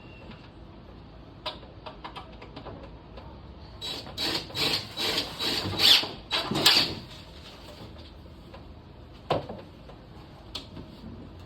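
Objects being handled and set down while a display is arranged: scattered light clicks and knocks, a louder rustling, clattering stretch of about three seconds in the middle, and a single knock near the end.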